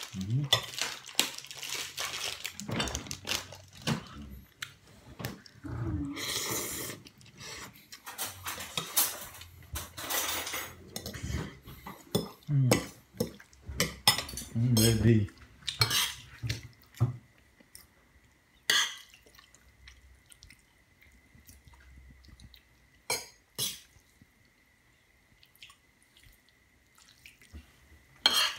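Two metal forks clinking and scraping against a ceramic bowl while tossing spaghetti and macaroni in meat sauce; the clinks come thick and fast at first and thin out to a few scattered ones in the second half. A faint steady high tone runs through the last third.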